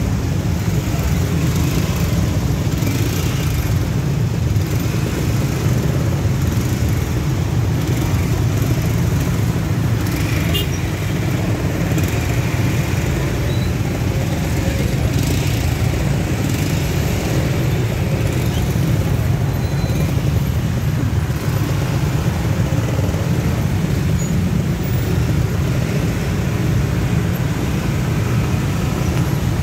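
Stop-and-go traffic of motorcycles and cars crawling in a jam, a steady low engine rumble throughout.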